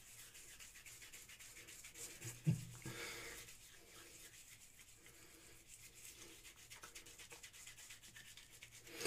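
A wet glycerin soap bar rubbed over a scalp with five-day stubble, making a faint, soft, scratchy rubbing. There is one short knock about two and a half seconds in.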